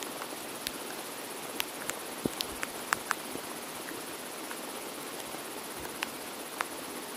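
A woven bamboo drying mat being lifted and rolled up, giving a scatter of light clicks and knocks, most of them about two to three seconds in and two more near the end, over a steady outdoor hiss with a thin high buzz.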